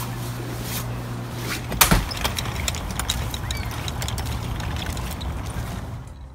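A door bangs shut once, loud and sharp, about two seconds in, over steady background noise and a low hum; the noise drops off near the end.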